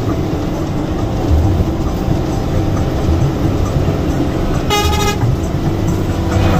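Steady running noise inside a Hino AK 8 bus under way while overtaking another bus, with one short horn blast of about half a second near the end.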